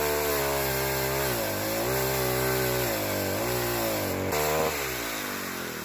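Small pole chainsaw running and cutting into a young tree; its motor pitch dips twice as the chain bogs in the wood, with a sharp click about four seconds in, then the pitch sinks as the saw slows near the end.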